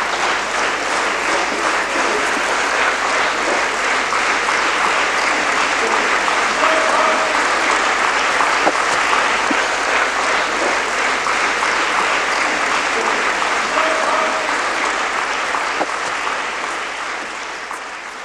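Theatre audience applauding steadily, fading out near the end.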